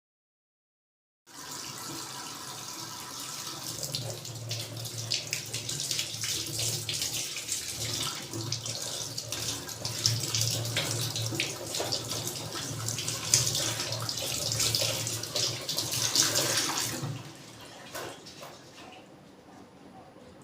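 Water running from a tap into a sink. It starts abruptly about a second in, runs steadily, and stops near the end, leaving a few light clicks and knocks.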